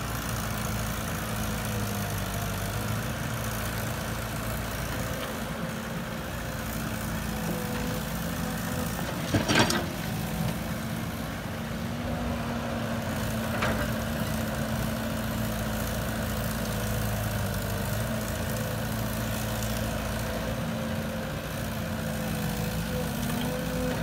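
Diesel engine of a Caterpillar excavator running steadily while it digs and loads earth into a dump truck. A sharp knock comes about nine and a half seconds in, and a lighter one about four seconds later.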